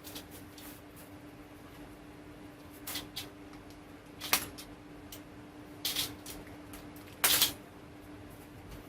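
Antenna packaging being cut and handled: a handful of separate clicks, snips and rustles, the sharpest about four seconds in and a longer rustle near the end, over a faint steady hum.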